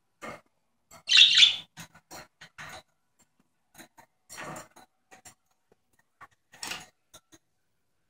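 Budgerigar calling: one loud chirp about a second in, then scattered short chirps and clicks.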